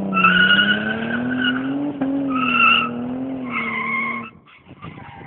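Holden VS Commodore ute doing a burnout: the engine is held at high revs while the tyres squeal in a wavering, broken squeal. Engine and squeal drop away together about four seconds in.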